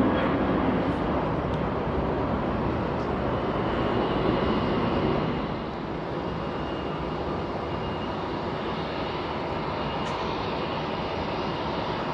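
Jet airliner engine noise with no voices. A Boeing 737 lifting off at takeoff thrust gives a loud, steady jet noise. About five and a half seconds in it gives way to a quieter steady jet noise with a faint high whine from an Airbus A320-family jet taxiing.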